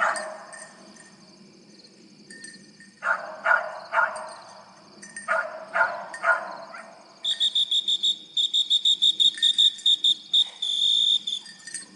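A dog-training whistle blown in a rapid string of short high toots, about seven a second, ending in one longer blast, as a recall signal to a Brittany puppy. Before it come a few short noisy bursts.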